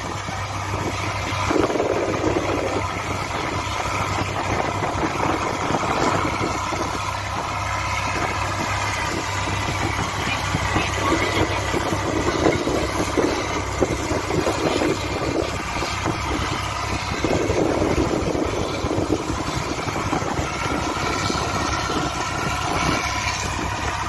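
Six-cylinder engine of a Thai long-tail boat running steadily under way, with the rush of wind and water over it.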